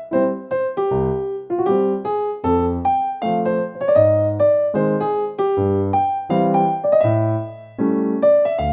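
Background music: a bright, bouncy piano or electric-piano melody over a bass line, a few notes a second.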